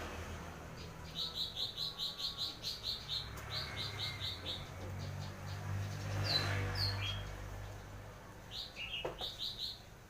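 A small bird chirping in quick runs of short, high notes, about six a second, with brief pauses between runs. A low steady hum runs underneath.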